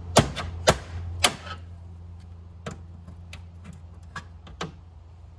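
Needle-nose pliers working a half-inch concentric knockout out of the bottom of a sheet-metal electrical panel: three sharp metallic clicks in the first second and a half, then several fainter ticks.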